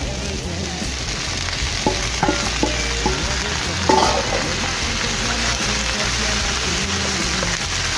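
Chicken and vegetables sizzling in a hot frying pan as they are stirred, with a few short knocks of the utensil against the pan around two and four seconds in.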